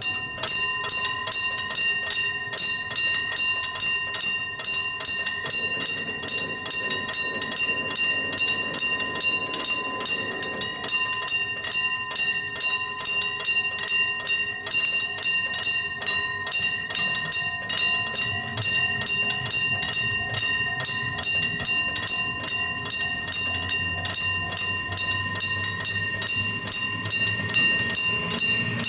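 Electric bell (電鈴) of a Japanese railway level crossing ringing its warning that a train is coming. It starts abruptly and gives a bright metallic stroke about twice a second.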